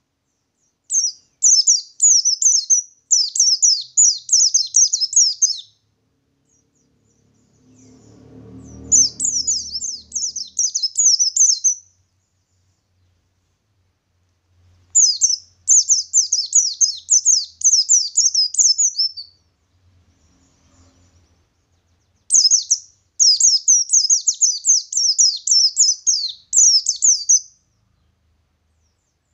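White-eye (pleci) singing its rolling song: four long runs of rapid, high twittering notes, each a few seconds long, with pauses between them. A soft low rumble is heard just before the second run.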